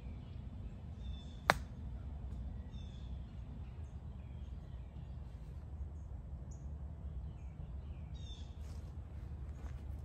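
A golf iron striking the ball once, about a second and a half in: a single sharp click of a short shot played from the rough under trees. Faint bird calls come and go over a steady low background rumble.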